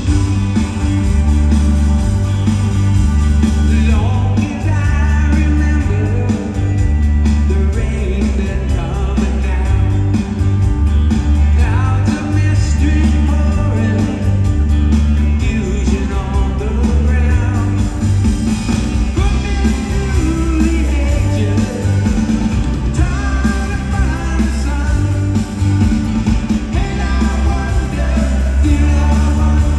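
Live rock band playing, with electric and acoustic guitars, electric bass and drums under a heavy low end. A male lead vocal comes in about four seconds in and carries on singing the verse.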